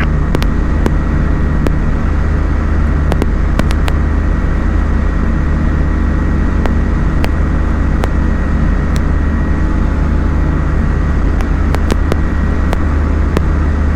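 Small aeroplane's piston engine and propeller droning steadily, heard from inside the cockpit, with a few faint clicks scattered through.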